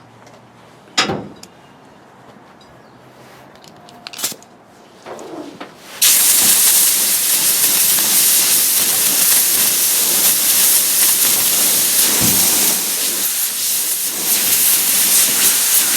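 A couple of short knocks, then about six seconds in a MIG wire-feed welder strikes its arc and runs steadily with a loud crackling hiss, welding a hole shut in a sheet-metal car hood.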